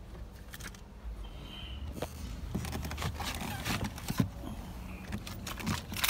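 Handling noise inside a car cabin: rustling, scraping and a busy run of light clicks and knocks, starting about two seconds in with one sharper click past the middle, as someone shifts in the driver's seat and reaches down toward the hood release.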